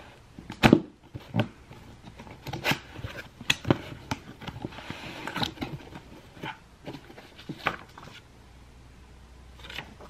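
Cardboard box being opened and handled by hand: an irregular series of taps, scrapes and rustles as the flaps are pulled open and the contents are touched. The loudest tap comes less than a second in, and the handling dies down near the end.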